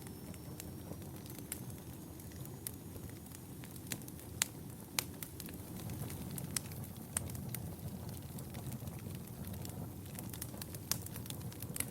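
Wood fire burning in a fireplace: a steady low rumble of flames with irregular sharp crackles and pops, a few much louder than the rest. A faint high whistle rises slightly and fades in the first few seconds.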